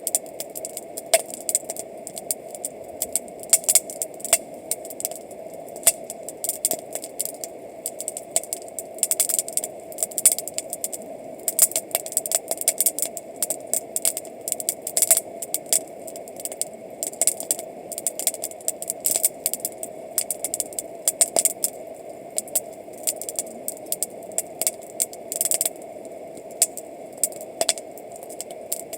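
Wood campfire crackling, with many irregular sharp pops and snaps over a steady background rush.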